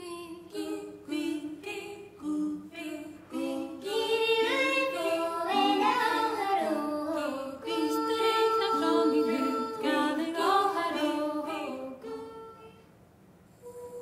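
Several female voices singing a cappella, imitating whooper swans. Short separate calls come first, then they build into overlapping held and gliding notes, which fade out near the end.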